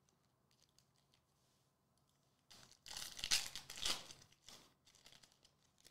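Foil trading-card pack being torn open and crinkled: a couple of seconds of crackly tearing starting about two and a half seconds in, after a few faint clicks of cards being handled.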